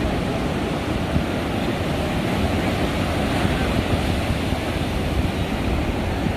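Surf breaking and washing on a beach, with wind buffeting the microphone as a steady low rumble.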